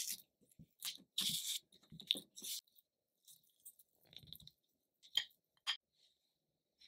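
Silicone spatula pressing and stirring softened butter and granulated sugar in a glass bowl: a quick run of short scraping, squelching strokes, then a few sparser ones about four and five seconds in.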